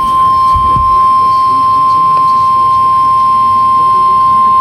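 The 1050 Hz warning alarm tone of NOAA Weather Radio, the attention signal that goes before a weather warning: one loud, steady, high-pitched tone.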